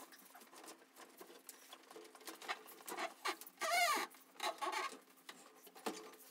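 Light clicks, taps and scrapes of Hot Toys figures being handled and set down on a glass shelf inside a display cabinet, with one short wavering squeak a little before four seconds in, over a faint steady hum.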